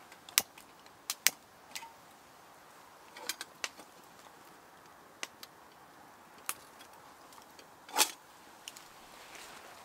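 Sharp metallic clicks and clinks of a hurricane lantern being handled as it is lit, in small irregular clusters, the loudest about eight seconds in.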